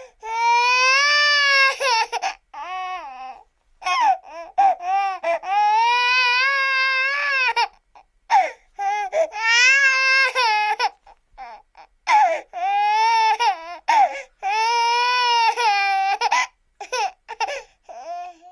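A baby crying hard: long, high, wavering wails of a few seconds each, broken up by shorter choppy cries and brief pauses between them.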